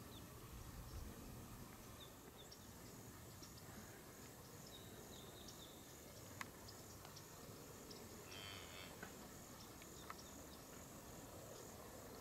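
Near silence: faint outdoor ambience with a few faint, high chirps scattered through it, a short cluster of them about eight seconds in, and a faint click a little past six seconds.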